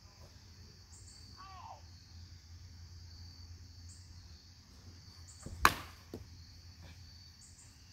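Baseball bat striking a ball off a batting tee: one sharp crack about five and a half seconds in. A steady chorus of chirping insects runs underneath.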